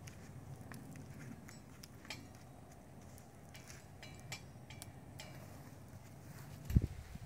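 Light scattered clicks and clinks from baler-twine strands and a metal rope-twisting frame being handled during rope making, over a faint low hum, with a dull thump near the end.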